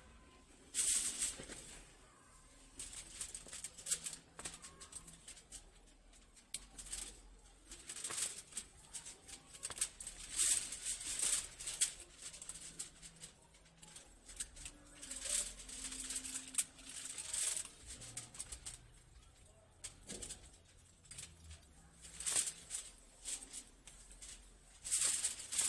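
Plant leaves rustling and crackling in short bursts, again and again, as fan leaves are handled, cut and pulled from the lower branches.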